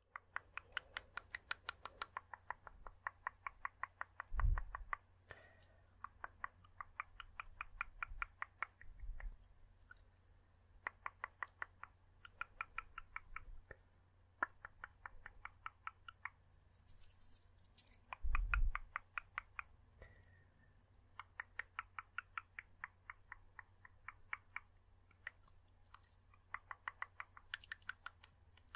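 Close-miked rapid tongue clicking: runs of quick mouth clicks, about eight a second, with short pauses between runs. Two low thumps, about four and eighteen seconds in, are the loudest sounds.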